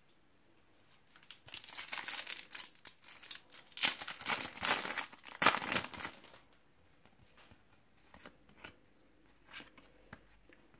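Foil wrapper of a Panini trading-card packet crinkling as it is opened and pulled off the cards, for about five seconds, followed by a few faint ticks as the cards are handled.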